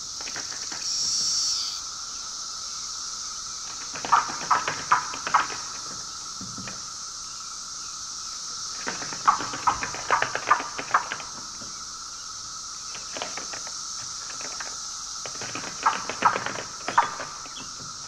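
A periodical cicada fluttering its wings on its back in a dish: three bursts of rapid clicking rattles as wings and legs strike the dish, over a steady high hiss.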